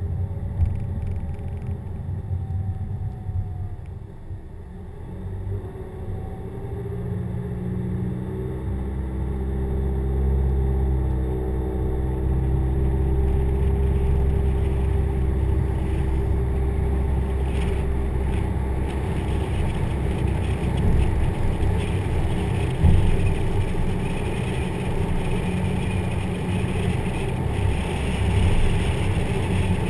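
Car engine and road noise heard from inside the cabin: the car slows nearly to a stop, then pulls away with the engine note rising as it speeds up, and settles into steady road noise at cruising speed. There is one brief bump about two-thirds of the way through.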